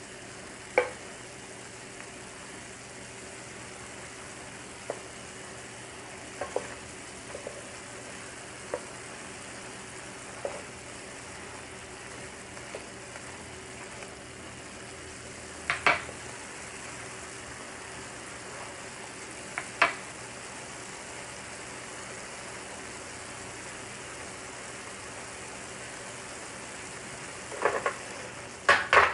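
Shrimp and garlic sizzling steadily in a hot, uncovered frying pan as their moisture cooks off. A wooden spatula stirs them, with occasional sharp knocks against the pan and a quick run of knocks near the end.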